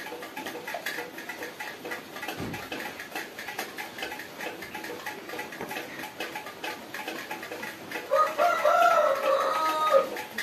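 Pencil scratching on paper in quick short strokes while colouring. About eight seconds in, a rooster crows once for about two seconds, the loudest sound.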